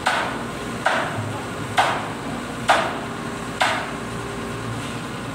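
Steady hammer blows on metal, five sharp ringing strikes about a second apart, over steady site noise.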